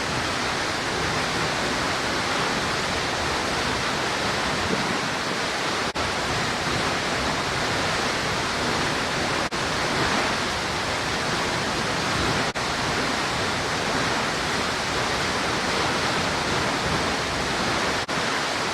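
Waterfall pouring into its pool: a loud, steady rushing of falling water, broken only by a few brief dropouts.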